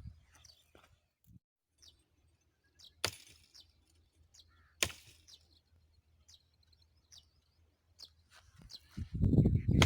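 Two sharp chopping blows into a tree, about a second and a half apart, with faint bird chirps between them. Near the end a loud, dense low rumble of noise sets in.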